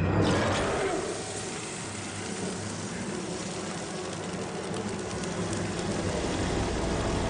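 Film sound effect: a sudden whoosh at the start, then a steady low rumble with a hiss over it, swelling slightly near the end.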